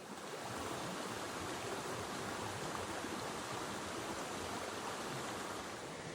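Steady rushing of creek water.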